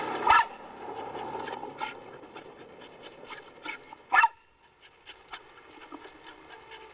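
A dog panting in quick, short breaths as it runs, with two louder sharp sounds: one about a third of a second in and one just after four seconds.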